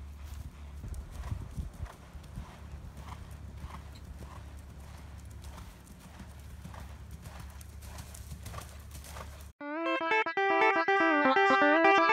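Faint, regular hoofbeats of a horse cantering on sandy ground, over a low rumble. About nine and a half seconds in, this cuts off suddenly and loud plucked-guitar music starts.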